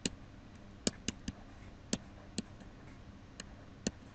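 Faint, irregular light clicks and taps, about eight spread over four seconds, from a stylus tapping on a pen tablet while handwriting.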